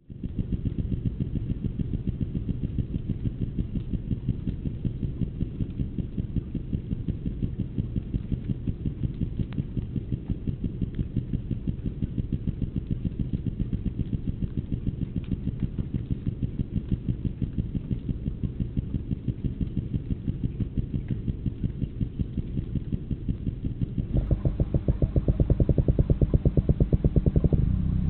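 Underwater recording of a fish call: a low, rapid pulsing drone like a running engine, which grows louder about 24 seconds in.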